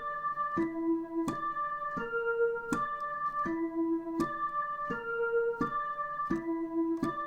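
The Dutch ambulance siren's tone pattern: a four-note broken chord repeated over and over in a keyboard-like tone. Each note lasts about 0.7 s and starts with a sharp attack, and the cycle comes round about every 2.7 s.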